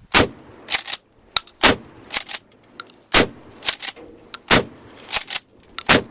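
Rapid pistol fire from a .40-calibre Glock 22: about a dozen sharp shots, many in quick pairs, each with a short echo.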